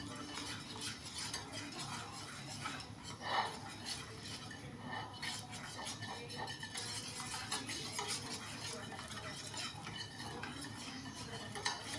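A utensil stirring thick cookie batter of flour, baking powder and egg by hand in a bowl: a steady soft scraping with frequent light clicks against the bowl.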